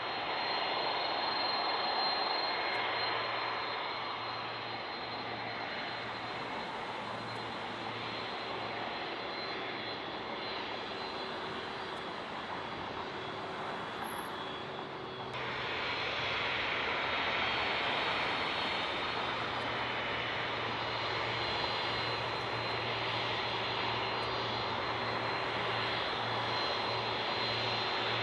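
Boeing 767 jet engines running at taxi power: a steady rushing rumble with a thin high whine. The sound shifts abruptly about halfway through and then runs a little louder.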